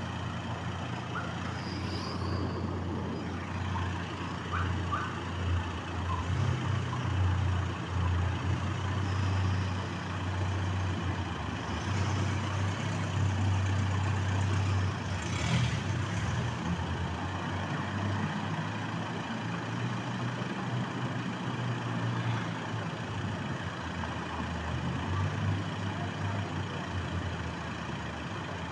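A motor vehicle engine idling: a steady low rumble that grows a little louder through the middle.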